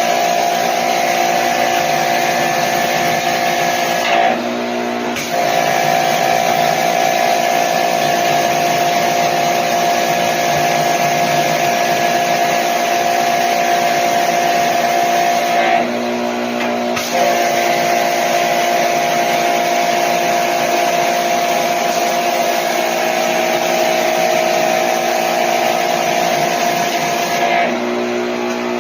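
A high-pressure washer spraying, its motor running with a steady hum under the hiss of the jet. The spray stops for about a second twice and again near the end while the motor keeps running.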